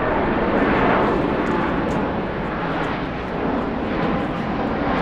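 A Boeing 747-8's four GEnx turbofans climbing out after takeoff. It is a loud, continuous jet roar with a slowly swirling, phasing tone as the aircraft passes close by, loudest about a second in.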